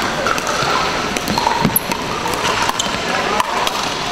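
Pickleball paddles striking plastic balls: scattered sharp pops from several courts, over the hum of players' voices in a large sports hall.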